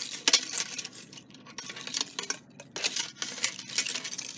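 A bunch of keys on a ring jangling and clinking against a metal elevator panel as one key is worked in the panel's fire-service keyswitch: a quick, irregular run of small metallic clicks.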